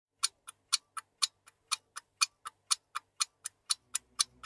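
A watch ticking steadily, about four ticks a second, the ticks alternately louder and softer. A low hum swells in near the end.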